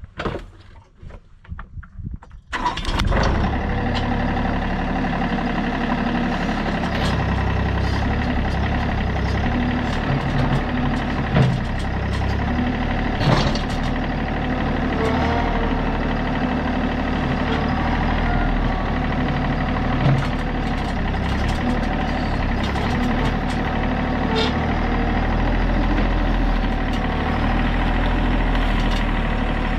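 Tractor engine starts about two and a half seconds in and then runs steadily, pulling a chained railroad-tie fence post out of the ground, with a few sharp knocks along the way.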